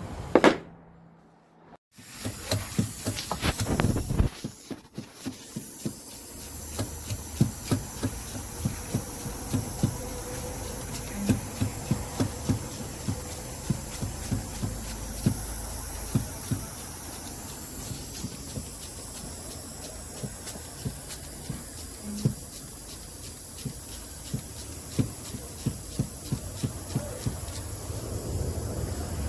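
Chevrolet 5.3-litre V8 running with a steady hiss and irregular sharp ticks, several a second, from the valve train. The ticking is the noise of a failed lifter that is not holding oil pressure, causing a misfire. A loud click and a brief dropout come near the start.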